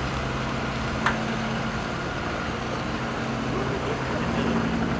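Slow-moving convoy vehicles, the astronaut transfer van and an armored escort truck, driving past with their engines making a steady low drone. A single sharp click sounds about a second in.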